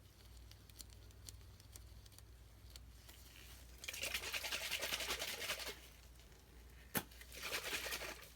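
Soap being worked for ASMR: faint scattered crackles, then a dense crackling, crunchy rustle for nearly two seconds, a single sharp click, and a shorter crackling rustle near the end.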